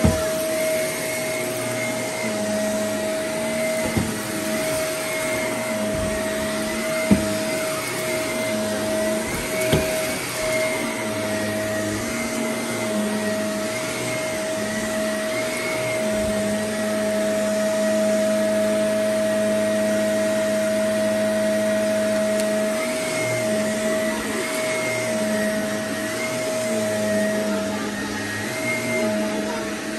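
Shark upright vacuum cleaner running steadily while being pushed across carpet, a constant motor hum with a clear whine. A few brief knocks sound in the first ten seconds.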